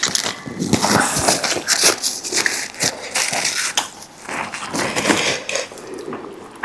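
Close-miked eating: noodles being slurped and chewed in quick, irregular bursts.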